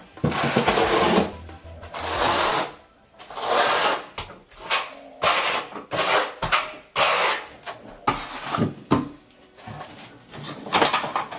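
Repeated scraping strokes of a steel trowel spreading and combing thinset mortar for floor tile, each stroke lasting about half a second to a second.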